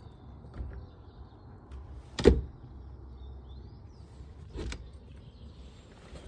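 Garden gate on a Briton B overhead door closer being swung and drawn back, with a sharp knock about two seconds in and a softer knock a little over two seconds later, as the gate meets its frame without latching.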